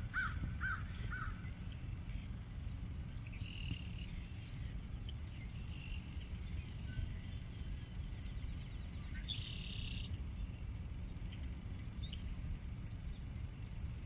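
Unidentified animal calls: a quick run of four chirps, then two harsh, buzzy calls several seconds apart, with a few fainter high notes between. A steady low rumble sits under them.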